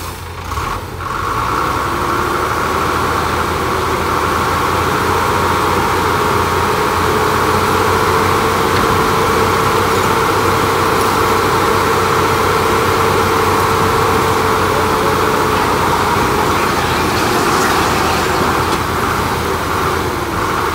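FAW Liute dump truck's diesel engine running steadily under load with a steady whine as its hydraulic hoist lifts the loaded tipper bed to dump.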